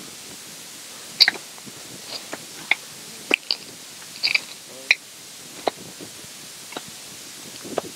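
Dry leaves and grass crackling and crunching in irregular, sharp snaps as they are handled and worked into the loosened soil of a dug garden trench.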